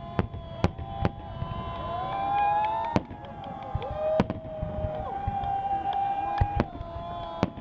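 Aerial fireworks shells bursting: irregular sharp bangs, several close together at times. Long tones that waver and glide in pitch run underneath.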